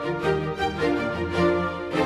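Background music: an instrumental tune of held notes that change every fraction of a second.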